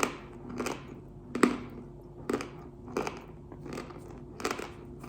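Pink Uzbek chalk being chewed close up, with a sharp crunch roughly every 0.7 seconds, about seven in all.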